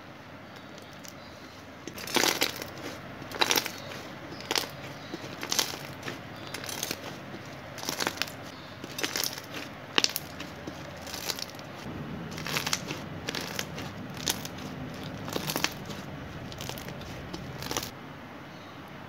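Hands squishing, stretching and poking a thick pink slime mixed with sprinkles and Fimo clay slices, making irregular crackling and popping clicks, starting about two seconds in and stopping shortly before the end.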